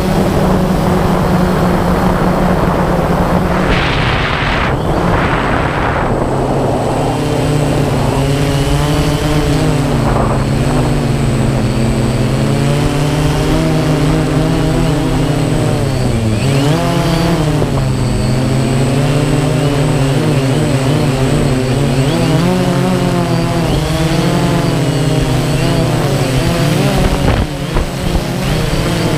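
DJI Phantom quadcopter's motors and propellers whirring steadily, heard close up from the camera on the drone, the pitch wavering up and down as the rotors change speed. A couple of bursts of rushing noise come a few seconds in.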